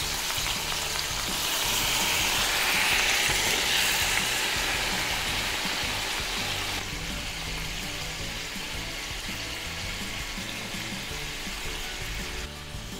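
Meat and tomato sauce sizzling in a hot Saladmaster stainless steel pan as the sauces go in. The sizzle is loudest a few seconds in, then dies down, dropping a step about halfway through.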